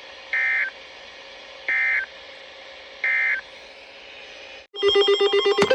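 Emergency Alert System end-of-message data tones from NOAA Weather Radio: three short, buzzy digital bursts about a second and a third apart, over faint radio hiss, marking the end of the severe thunderstorm warning. Near the end the hiss cuts out and loud, rhythmic electronic music starts.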